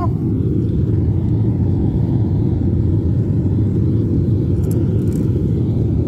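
A propane gas burner firing steadily into a converted electric-kiln chamber: a loud, even, low rumble, the burner newly lit from burning paper.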